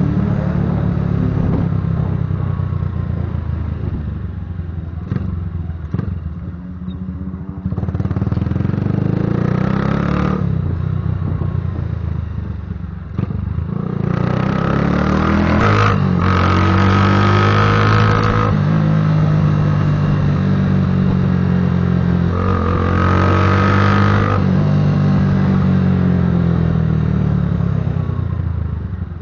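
Patagonian Eagle cruiser motorcycle being ridden, its engine rumbling through the exhaust. It revs up and eases off several times, with the strongest pulls about a third of the way in, around the middle, and again about three quarters through.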